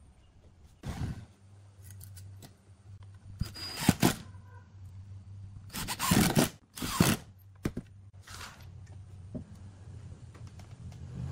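Short bursts from a Makita cordless impact driver driving screws through a steel hinge into pine, mixed with knocks and scrapes of the wooden parts being handled. There are about five brief bursts, the loudest around the middle, over a faint low hum.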